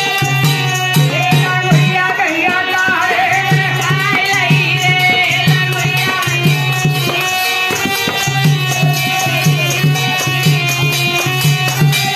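Live Indian folk music: a dholak drum keeps a steady beat of about two low strokes a second over sustained keyboard notes, with crisp percussion strokes on top. About two to five seconds in, a wavering melody line rises over the accompaniment.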